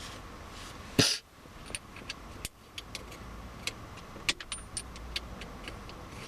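Hands working a leather gear-lever gaiter and its collar into place around a car's gear knob: one loud handling noise about a second in, then scattered small clicks and taps.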